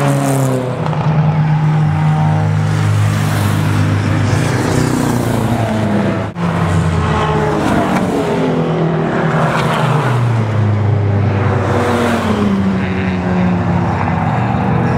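Race car engines going by on a circuit, several passes with the engine pitch rising and falling as each car drives past and changes speed. There is a brief break in the sound about six seconds in.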